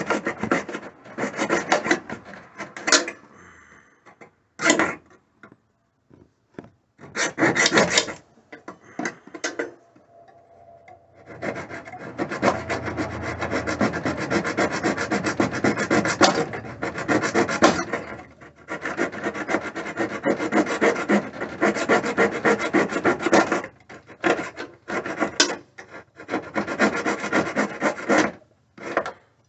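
Hand-held metal tool scraping rapidly back and forth under a 1992 Ford F-150's dash, cleaning away the remains of the broken dash bracket mount by hand. Short spells of scraping at first, then nearly continuous scraping from about a third of the way in until near the end.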